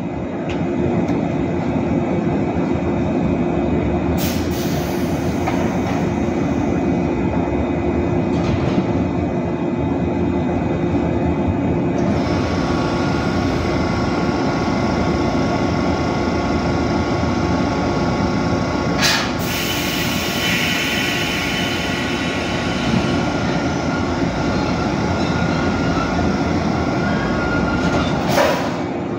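JR 415 series 1500-subseries electric train humming steadily at the platform, then pulling out in the second half. Three sharp clanks sound, about four seconds in, near the middle and near the end.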